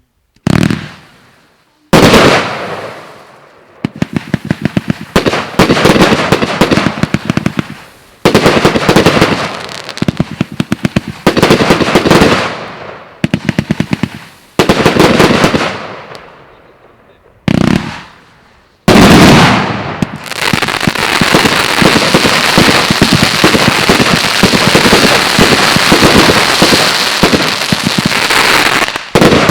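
Hallmark Fireworks 'Relentless' compound cake firing volleys of very loud salute reports with crackling, each volley dying away before the next. In the last third the shots come fast and without a break.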